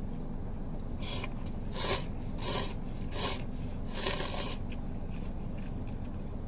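A man slurping soba noodles, about five short noisy slurps in quick succession, the last one longest.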